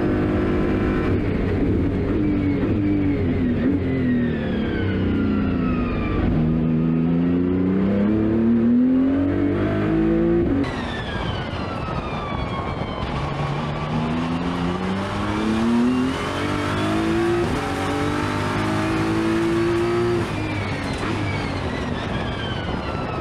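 BMW M4 GT3 race car's twin-turbo straight-six engine heard from inside the cockpit under hard acceleration, its pitch climbing in long sweeps and falling back at each gearshift.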